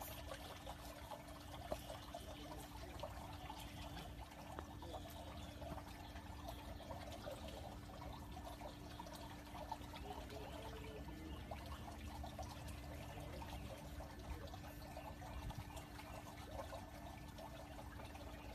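Faint swimming-pool water trickling and lapping, with a steady low hum underneath.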